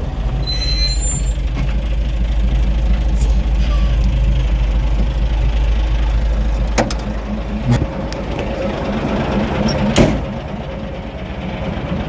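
Kato truck crane's diesel engine running with a steady low rumble, heard from the cab. About seven seconds in the rumble eases and a few sharp knocks follow, the loudest about ten seconds in.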